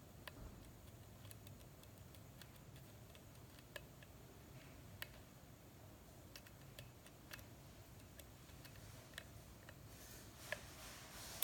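Faint, scattered clicks of a lock pick and tension tool working the pins of a six-pin pin-tumbler challenge lock cylinder, a few slightly louder near the end.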